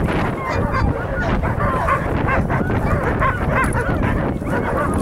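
A dog yipping and whining in many short, high yelps in quick succession: a dog held back by its collar, straining to join a chase.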